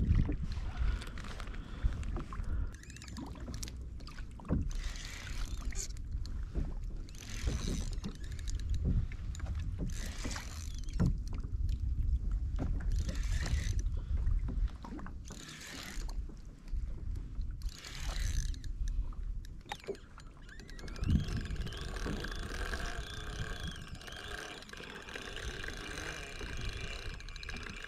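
Water sloshing and washing against a plastic kayak hull, with wind rumbling on the camera microphone in waves every second or two. From about two-thirds of the way in, a steady whirring joins it: a fishing reel being cranked as a hooked mahimahi is brought in.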